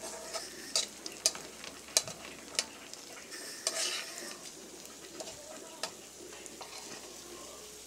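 Strips of food frying in hot oil in a wok with a steady sizzle, while metal tongs turn and separate the pieces. The tongs click and scrape against the wok, with sharp clicks several times in the first four seconds and fewer after.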